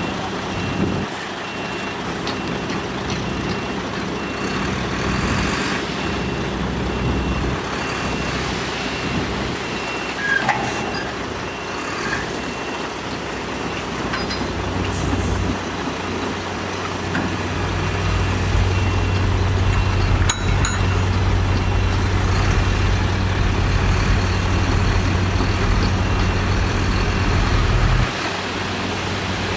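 Heavy diesel earthmoving machinery running, with a reversing alarm beeping steadily through the first half. About halfway through the engine drone grows louder and deeper as the machine works under load, then drops back shortly before the end.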